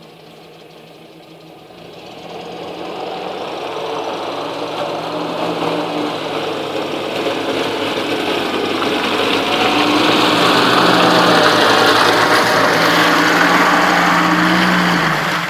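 UAZ-469 off-roader's engine running as it drives through deep mud toward and past, growing louder over the first ten seconds and loudest as it comes close, then dropping away right at the end.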